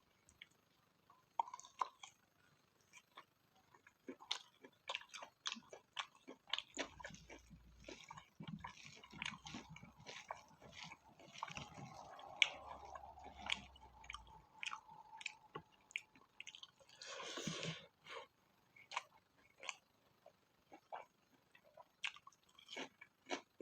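Close-miked chewing of spicy pork fat: many short wet mouth clicks and smacks, with a louder, breathy noisy burst lasting about a second roughly two-thirds of the way through.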